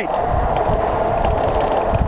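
Electric bike's motor whining at one steady pitch while riding at speed, over low wind rumble on the microphone and tyre noise.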